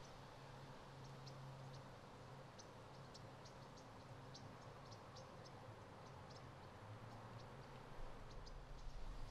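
Near-silent outdoor ambience: scattered short, high chirps at irregular intervals over a faint low hum, with a few low bumps near the end.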